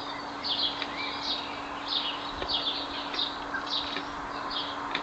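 Small garden birds chirping over and over, short high chirps about two a second, over a faint steady low hum.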